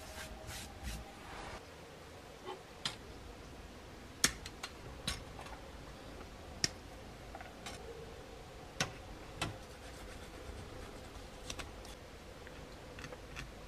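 Irregular sharp clicks and taps of small plastic model-kit parts being handled, snipped and trimmed, about a dozen in all; the loudest come a little after four seconds in and at about six and a half seconds.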